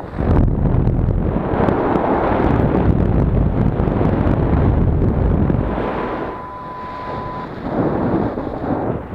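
Wind buffeting the microphone in flight under a paraglider, easing a little after about six seconds. About six seconds in, the homemade Arduino acoustic variometer sounds one steady high tone lasting about a second and a half.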